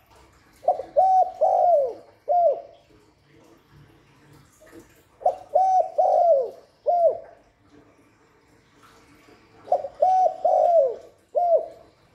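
Spotted dove cooing: three phrases about four and a half seconds apart, each two or three short coos, a longer falling coo and a short last note. It is a decoy bird's territorial call, used to lure wild doves.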